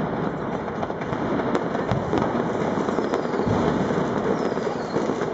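Dense, unbroken barrage of New Year's Eve fireworks and firecrackers: a steady crackle with many sharp bangs going off one after another.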